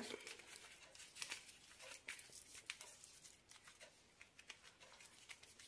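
Faint rustling and crinkling of a wilted banana-leaf parcel being folded and tied shut with a strip of leaf, with light scattered crackles.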